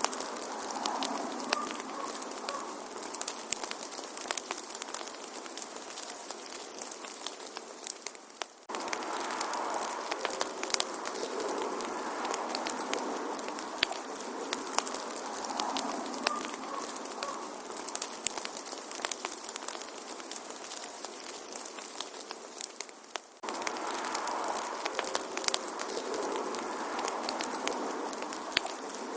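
Wood fire crackling in a fireplace: irregular sharp pops and snaps over a steady hiss. Twice the sound fades down and cuts straight back in, as a looped recording restarting.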